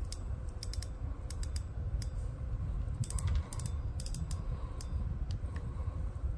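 Irregular small clicks and taps from hands handling a KastKing Centron 4000 spinning reel, fingers on its spool and braided line, some clicks coming in quick clusters over a low handling rumble.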